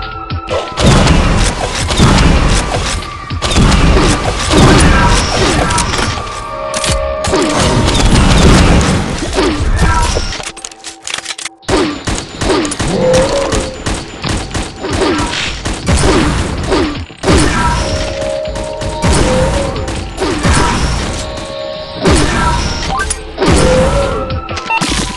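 Loud music with a heavy, thumping beat and repeating phrases; it drops out briefly about eleven seconds in.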